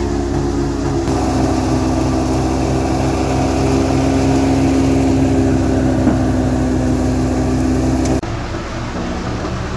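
Engine-driven wheat thresher running at a steady speed, a loud even machine hum. The sound changes abruptly about a second in and again near the end.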